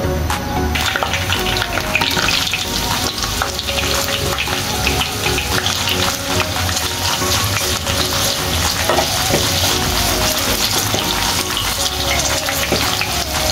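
Sliced onions and whole spices frying in hot oil in a stone-coated nonstick pan, sizzling steadily while a wooden spatula stirs and scrapes them. The sizzle gets louder about a second in.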